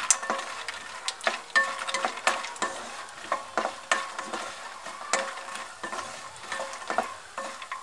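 Wooden spatula stirring makhana (fox nuts) as they fry in ghee in a nonstick wok: irregular taps and scrapes of spatula and nuts against the pan, roughly one or two a second, over sizzling.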